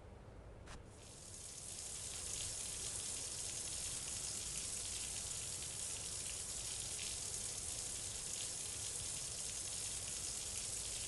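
A click, then a steady hiss of running water that builds over about a second and holds.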